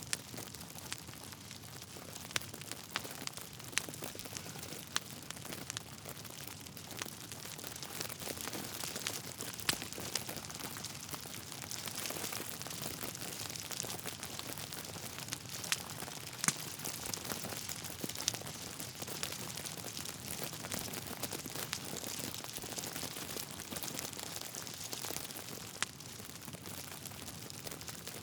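Wood fire burning in a fireplace: a steady hiss with irregular crackles and sharp pops from the burning logs.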